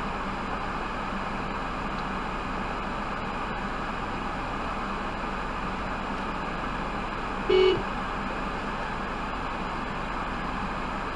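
Steady hissing background noise with a low hum, broken once about seven and a half seconds in by a single short beep.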